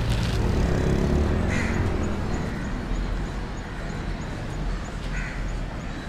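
Street ambience: a steady low traffic rumble, with two short, harsh calls, one about a second and a half in and one near the end.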